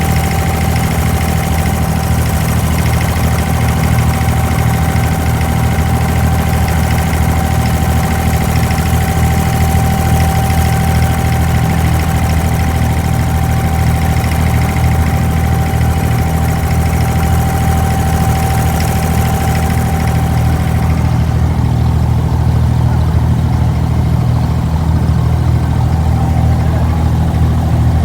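Abra's diesel engine running steadily, heard on board, a strong low drone with a thin steady whine above it. About three quarters of the way through, the higher hiss drops away while the low engine drone carries on.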